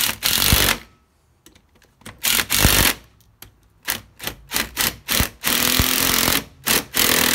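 Ratchet wrench clicking in about ten bursts of varying length as the bolts holding a new lower ball joint are run down tight.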